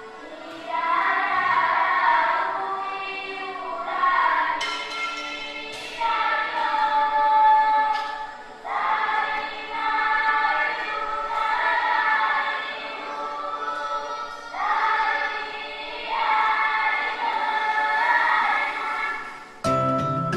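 A choir singing sustained, wordless phrases over music, rising and falling in loudness every couple of seconds; near the end it gives way to different music.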